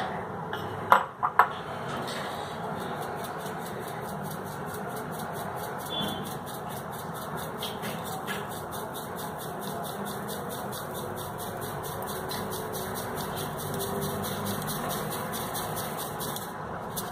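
Plastic mesh sieve shaken over a glass bowl, with ground muesli and flour rustling through the mesh in a steady rhythmic hiss at about four shakes a second. A few sharp knocks about a second in.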